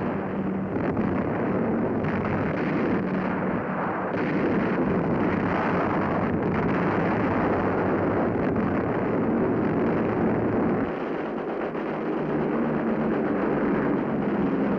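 Bomb explosions rumbling almost without a break over a steady engine drone, on a muffled old film soundtrack. The deep rumble thins out about eleven seconds in, leaving mostly the drone.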